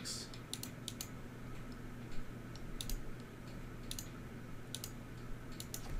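Computer mouse button clicking as numbers are entered into a calculator: about six quick double clicks, spaced unevenly, over a faint steady hum.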